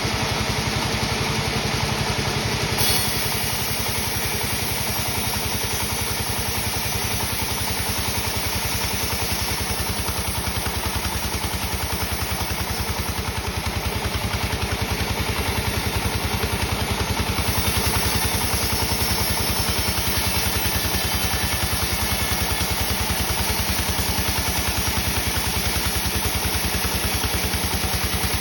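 Sawmill machinery running steadily with a dense engine-like hum. There is a brief knock about three seconds in, and the sound turns brighter and slightly louder past the middle.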